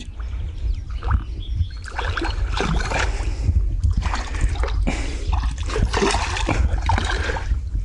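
Water splashing and gurgling in irregular bursts as a hooked silver carp thrashes at the surface while it is being brought to the landing net, over a steady low rumble.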